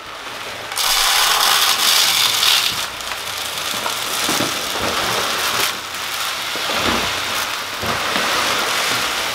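Chicken feed pellets pouring from a large feed sack into a plastic feed silo: a dense, steady rattling hiss that starts about a second in and is loudest over the next two seconds.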